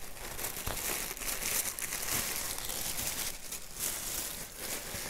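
Packaging rustling and crinkling as a delivery box is opened and its wrapping pulled aside by hand, in an irregular run of crackles.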